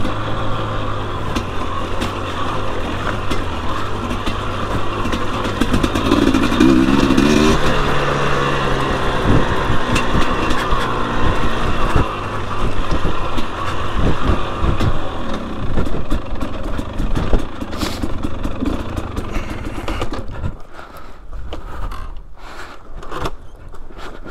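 A 2021 Husqvarna TE250i two-stroke dirt bike engine is heard under way, its revs rising and falling with the throttle, while knocks and clatter from the bike over rough ground come through. Near the end the engine drops to lower revs and gets quieter.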